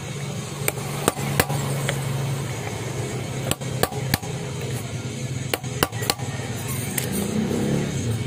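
Hammer blows on a metal punch-like tool driving an old rubber damper bushing out of a motorcycle rear wheel hub. There are about a dozen sharp strikes, often in quick twos and threes, with music playing underneath.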